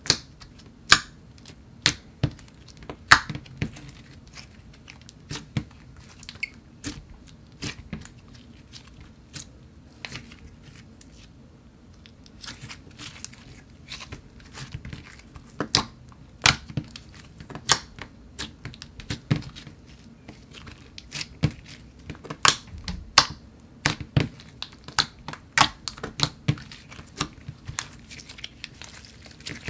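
Glossy slime squished, poked and stretched by hand, giving off irregular sharp pops and clicks, with a quieter stretch near the middle.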